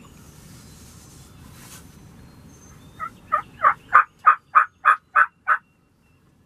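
A turkey yelping: a run of about nine loud, evenly spaced yelps starting about three seconds in.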